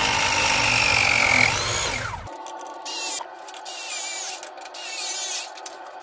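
A handheld power tool running at speed with a steady whine, winding down with a falling whine about two seconds in, then run again in two shorter, quieter spells.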